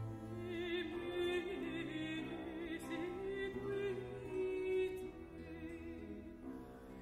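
Mezzo-soprano singing a baroque aria with a wide vibrato, accompanied by a continuo ensemble of theorbo, baroque harp and bowed strings. The voice drops out about five seconds in, leaving the instruments playing.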